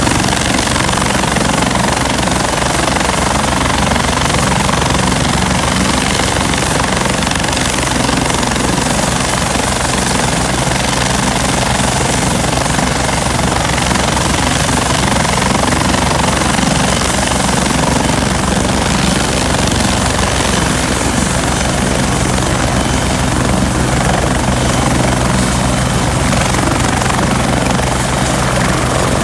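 Bell 430 twin-turbine helicopter running on the helipad with its rotor turning before lift-off: a steady, loud, rapid beat of the rotor blades over a broad rush, with a thin high turbine whine above.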